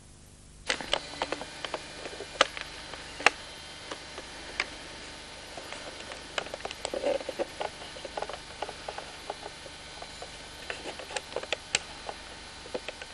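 Computer mouse clicked by bare toes: irregular sharp clicks over a steady hiss, starting just under a second in, with a short rubbing sound about seven seconds in.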